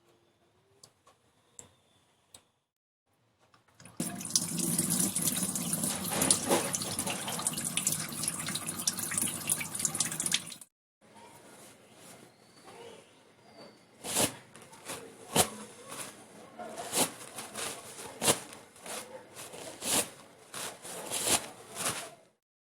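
Water running from a tap for about seven seconds, then cut off abruptly. Afterwards come a series of sharp, irregular clicks and taps.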